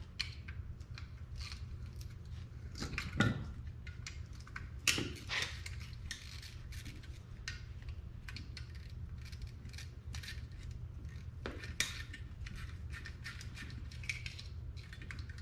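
Metal hand tools and parts clinking and tapping against each other during work on a car's alternator bracket, with a few louder clanks over a steady low hum.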